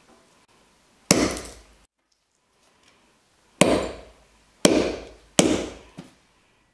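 Hammerstone striking a flint core set on a stone anvil in bipolar knapping: four sharp cracks, one about a second in and three close together near the end, each with a brief ringing tail, and a small knock after the last.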